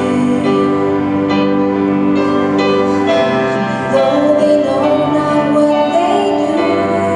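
A slow, gentle worship song playing, a woman's voice singing held notes over sustained instruments.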